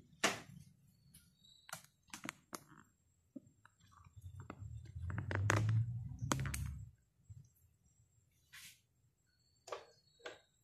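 Scattered light clicks and knocks of handling: the recording phone being moved and kitchen things shifted by hand. A low rumble of handling noise runs from about five to seven seconds in.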